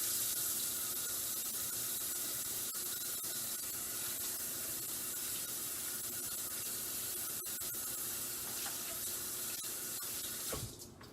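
Kitchen faucet running into the sink while hands are washed under the stream. It comes on suddenly and is shut off near the end.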